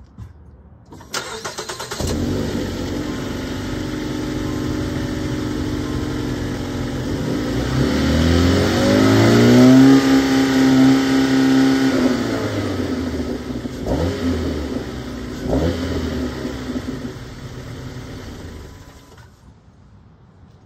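A 2021 Jeep Renegade's four-cylinder engine is cold-started: a brief crank about a second in, then it catches and runs. Around eight seconds in it is revved up and held high for a few seconds, then brought back down. It is blipped twice and shut off near the end, heard from beneath the car.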